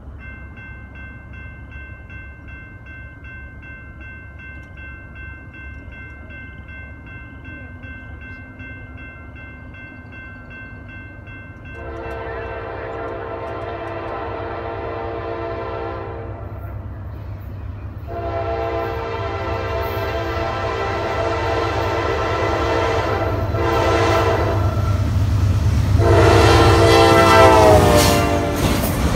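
Freight locomotive's air horn sounding the grade-crossing pattern: two long blasts, a short one and a final long one that drops in pitch as the locomotive passes, over the rising rumble of an approaching Triple Crown RoadRailer train. Before the horn, a faint steady high ringing.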